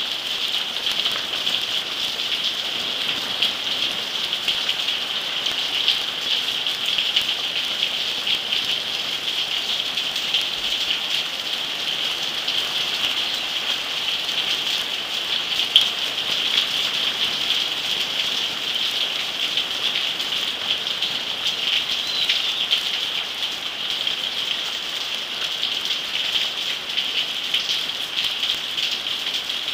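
Torrential rain pouring down onto rooftops, a steady dense hiss of countless drops, with one brief sharp tick about halfway through.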